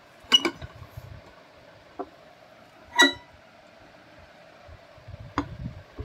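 Hard knocks and clinks from vacuum cleaner motors being handled: a double knock just after the start, a light tap about two seconds in, and a loud ringing clink about three seconds in. Another knock with some low rubbing comes near the end.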